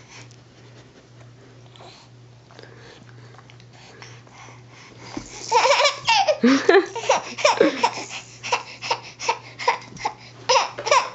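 A baby laughing hard in rapid repeated bursts, starting about halfway through after a few quiet seconds with a faint steady hum.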